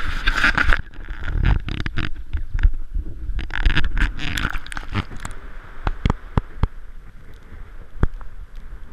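Action camera being dipped into a lake: wind and water splashing against the housing, then muffled underwater sound with many scattered sharp clicks and knocks.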